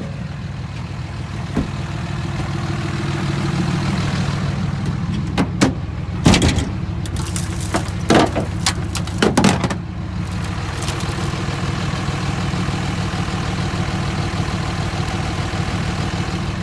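Diesel pickup truck engine idling steadily, with a run of sharp knocks and clatters about a third of the way in.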